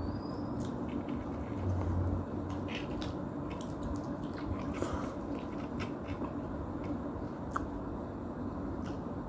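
A person chewing noodles close to the microphone: wet mouth sounds and small irregular clicks, over a steady low hum.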